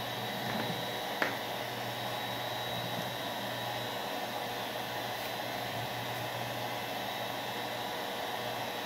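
Hand-held hair dryer running steadily, a constant whir of motor and rushing air with a low hum. One short click about a second in.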